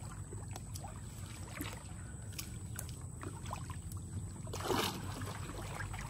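Pond water sloshing and dripping with small knocks and clicks, and a louder splash about three-quarters of the way through, over a steady low rumble.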